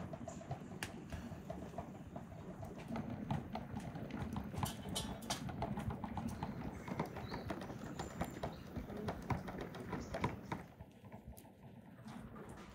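Wood fire crackling in a small bucket stove, a dense run of irregular snaps and pops over a low rumble, dropping away about ten seconds in.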